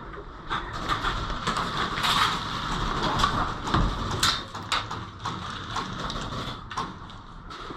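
Airsoft gun shots, irregular sharp clicks and snaps, over a steady rustling of the player moving.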